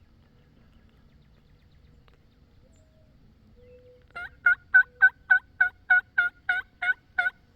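Turkey call worked by a hunter as a run of hen yelps: about eleven evenly spaced, two-note yelps at roughly three a second, starting a little past halfway through. It is a last call to draw a departing tom back.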